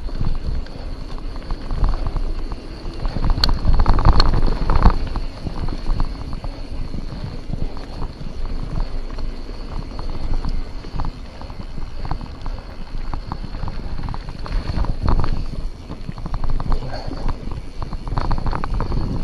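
Mountain bike riding over a gravel forest track: tyres crunching and the bike rattling over stones, with wind rumbling on the camera microphone. A burst of louder knocks and rattles comes about four seconds in.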